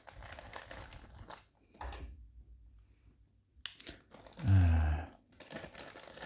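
Plastic postal mailer bag crinkling and rustling as hands pull and pick at it, trying to tear it open, with a quiet pause in the middle and a sharp click. About four and a half seconds in a brief low hum, the loudest sound, cuts through before the crinkling starts again.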